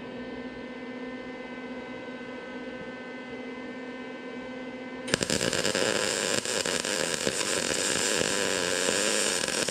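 A steady hum, then about halfway in a MIG welder's arc strikes and runs for about four and a half seconds, crackling steadily as it lays a weld on the sheet-steel car body panel, and cuts off at the end. The heat had been turned down after burning holes, and this weld goes better and is easier to control.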